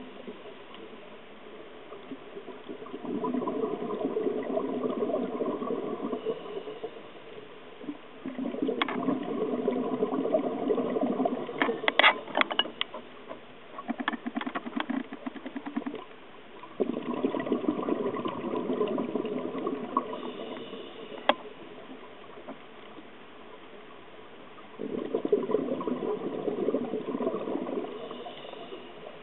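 Scuba diver breathing through a regulator underwater: four long exhalations of burbling bubbles, several seconds each, with quieter gaps for the inhalations between. A few sharp clicks come around the middle.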